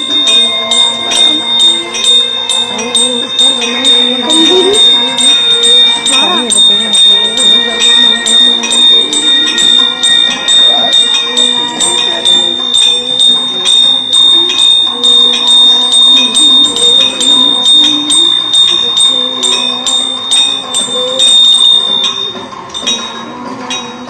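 Temple bell rung rapidly and continuously during a lamp-waving worship ritual: an even stream of clangs over a sustained high ring. It stops about two seconds before the end.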